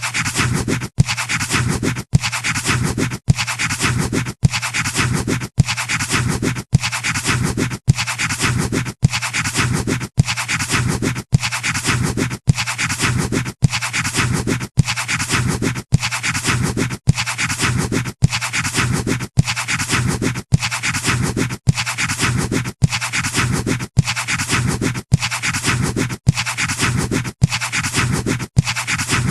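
Pencil scratching on paper, a short stretch of scratching repeated about once a second with a brief clean break between each, over a steady low hum.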